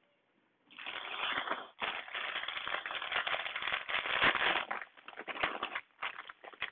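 Clear plastic bags of Lego parts being handled, crinkling and crackling, starting about a second in and thinning out near the end.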